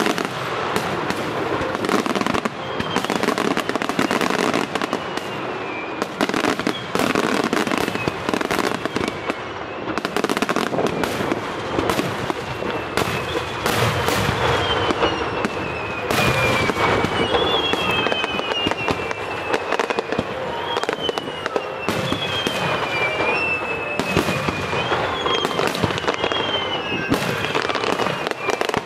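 Aerial firework shells bursting in rapid succession with crackling. High whistles falling in pitch repeat over and over through the second half.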